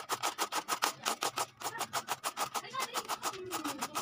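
A carrot being grated on a flat stainless steel hand grater: quick, even scraping strokes, about seven or eight a second.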